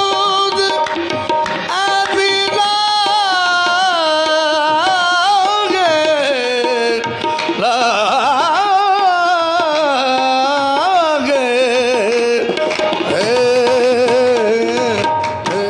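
Closing of a devotional song: a man's voice sings long wordless melodic runs with a wavering vibrato over steady held tones and tabla. The music begins to fade out near the end.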